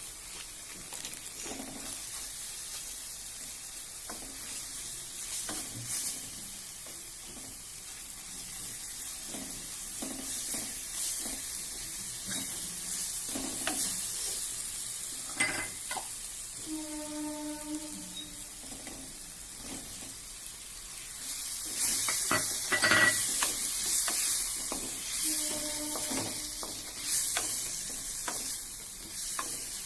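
Food sizzling in hot oil in a pan while a spatula stirs and scrapes it, in repeated short strokes. The sizzle grows louder about two-thirds of the way through.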